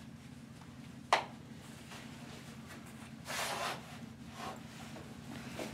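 Clothing and gear being handled while dressing: a sharp click about a second in, then a burst of fabric rustling a little past three seconds in and a few softer rustles, over a steady low hum.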